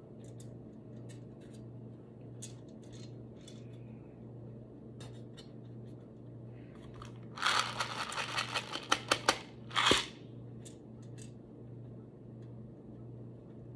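Plastic aroma beads clattering as they are poured into a silicone mold: a dense rattle of small clicks for about two seconds just past halfway, then one short burst, with scattered lighter clicks around them. A low steady hum runs underneath.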